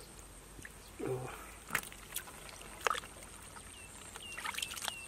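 Hands sloshing and splashing through shallow muddy water while groping for catfish, with a few sharp splashes about two and three seconds in. Near the end a short chirping call repeats several times.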